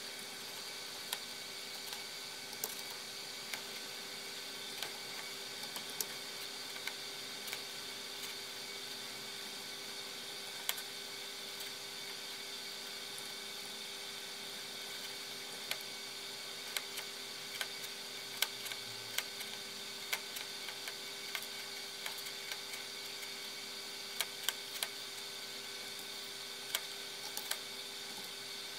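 Scattered, irregular mouse clicks over a steady electrical hum from a computer.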